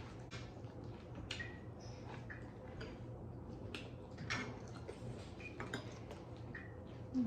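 Faint eating sounds: scattered soft clicks and crunches from chewing and spoons on plates, over a low steady hum.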